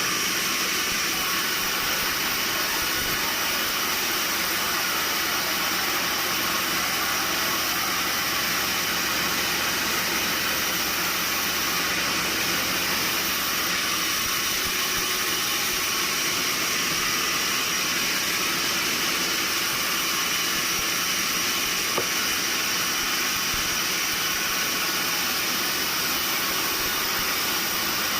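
Steady, unchanging hiss of sawmill machinery running, strongest in the high range, with one faint tick about twenty-two seconds in.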